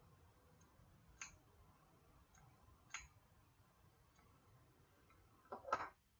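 Faint, sparse clicks in a quiet room: two sharper clicks about a second and three seconds in, with a few fainter ones between them, then a louder burst of clicks or knocks near the end.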